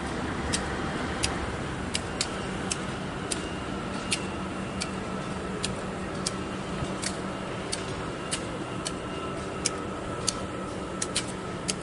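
GE C44-9W diesel locomotive idling at a standstill: a steady low rumble with a faint hum. Sharp clicks come through it irregularly, one or two a second.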